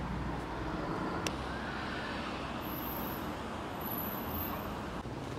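Steady outdoor street noise with road traffic going by, and a single sharp click about a second in.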